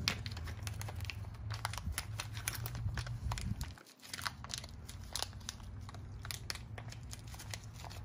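A clear plastic parts bag crinkling and crackling in the hands, with scattered small clicks as small plastic parts are handled inside it.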